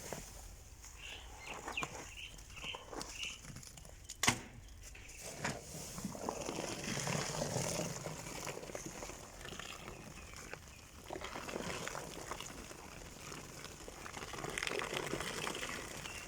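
Wet clothes being handled and pulled out of a top-load washing machine's tub: uneven rustling and handling noise, with one sharp knock about four seconds in.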